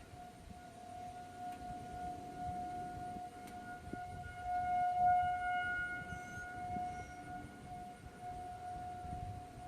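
Federal Signal 2001 rotating outdoor warning siren sounding its steady alert tone: a single held pitch that swells louder about five seconds in as the rotating horn turns toward the listener, then eases back.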